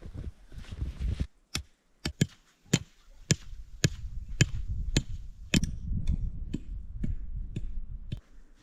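A run of sharp knocks, about two a second, starting about a second and a half in and stopping near the end, over a low rumble.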